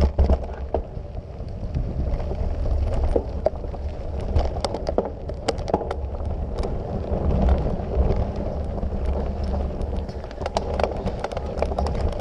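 Mountain bike riding down a dusty dirt trail, heard from a camera on the bike: wind rumbling on the microphone, tyres running over dirt and loose stones, and frequent sharp rattles and knocks as the bike jolts over bumps.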